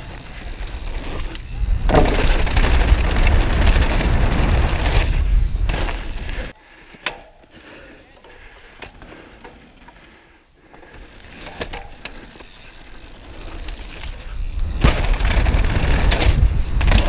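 Downhill mountain bike running fast over a dirt and gravel trail: tyre roar and the rattle of the bike. About six and a half seconds in the noise drops suddenly and stays much quieter for a few seconds, then builds back to full loudness near the end.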